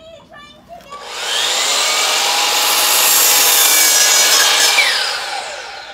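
DeWalt sliding compound miter saw cutting through a pressure-treated pine board: the motor starts about a second in, runs loud and steady through the cut, then its pitch falls as the blade spins down near the end.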